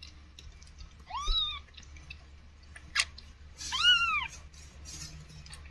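Newborn kittens mewing as they nurse: two short, high-pitched mews, each rising and then falling in pitch, about a second in and near four seconds, the second louder. A sharp tick sounds just before the second mew.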